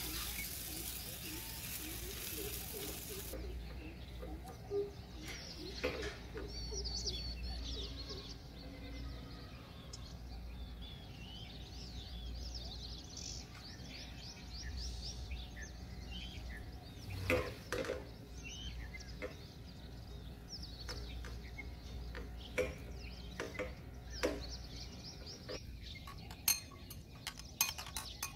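Spatula scraping and mashing potato filling in a non-stick frying pan, with scattered knocks and clinks of utensils, and a spoon clinking in a china bowl near the end. Birds chirp in the background over a low steady hum.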